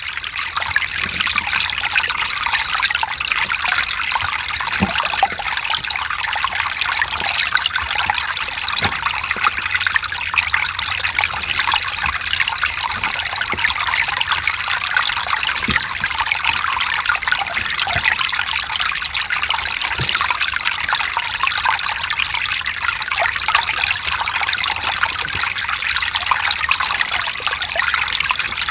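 Mountain stream trickling and splashing over rocks, with small drips and plinks among the steady rush of water.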